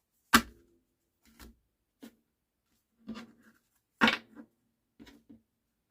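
Tarot cards being handled and laid down on a table: a run of short, sharp slaps and taps, the two loudest about a third of a second in and about four seconds in.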